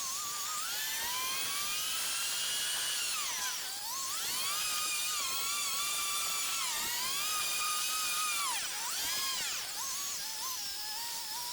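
Background music: a high, whining electronic tone that slides up and down in pitch, swooping down and back up twice, with no bass.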